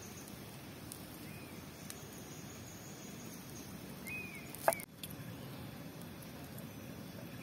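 Forest background: a steady high insect trill that stops about halfway, a few short bird chirps, and one sharp clack a little past the middle.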